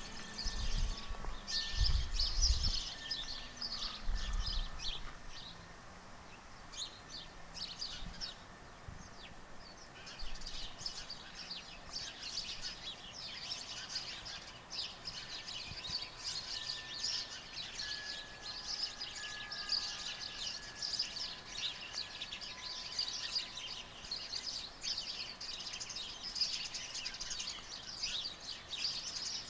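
Many small birds chirping at once in a dense chorus of quick, high calls, sparse for a few seconds early on and then thick and continuous from about a third of the way in. A few low thumps and a slowly falling low tone sound in the first few seconds.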